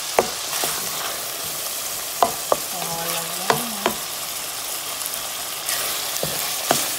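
Ground beef sizzling as it fries in its own fat in a pan, while a wooden spatula breaks up and stirs the meat, knocking against the pan about seven times.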